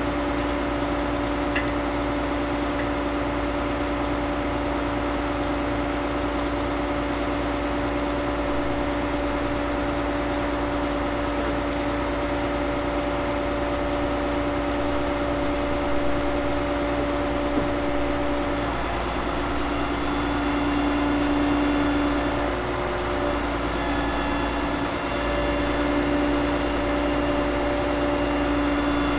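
Log truck's engine running steadily with a steady whine, driving the knuckleboom loader's hydraulics; the tone wavers and shifts a little past halfway as the loader's grapple is moved.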